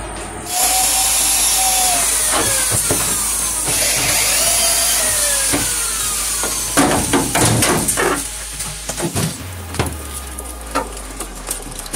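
A power tool running, its pitch sagging and recovering a few times, then a burst of sharp knocks and clatter about seven seconds in, after which it goes quieter with scattered clicks.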